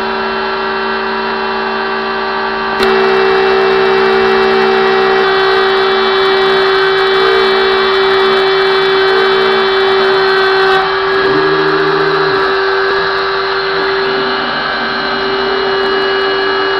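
Stepcraft 600 CNC machine running its PCB milling job: the spindle gives a steady high whine over a hiss of cutting. It gets louder about three seconds in, and some lower tones change briefly around eleven seconds.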